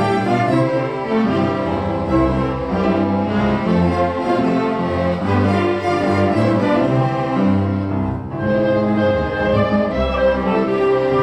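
Youth instrumental ensemble playing a piece, bowed strings carrying sustained melody lines over low held notes. The sound thins briefly about eight seconds in, then the full ensemble returns.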